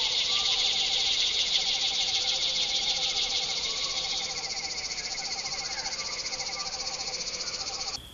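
A dense high chorus of insects buzzing in rapid pulses, with frogs giving short trills over and over lower down. The high buzzing eases about four seconds in, and the whole chorus cuts off suddenly near the end.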